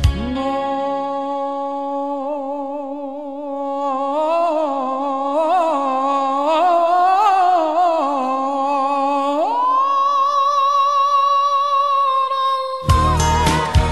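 An unaccompanied wordless sung line holds one long note, wavers up and down from about four seconds in, then glides up about an octave and holds the high note. Near the end the band comes back in with drums.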